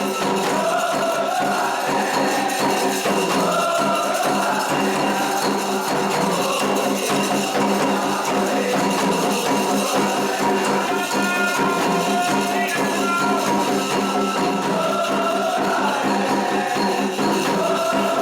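Candomblé ritual music: a melody sung over continuous jingling, tambourine-like percussion.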